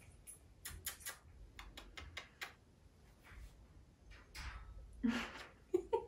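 Kissing sounds between a woman and her pet cockatiel: a scatter of soft clicks and smacks, with a few louder smacks about five seconds in.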